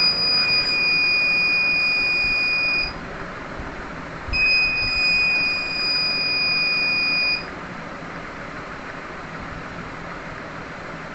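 The Arduino car's electronic buzzer horn sounding two long, steady, high-pitched beeps of about three seconds each, with a pause of about a second and a half between them, over a steady hiss.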